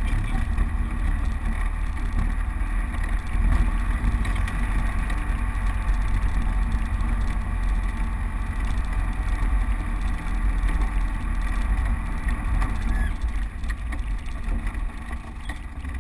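Land Rover Defender driving off-road along a rough lane: a steady, low engine and drivetrain rumble, easing off slightly near the end.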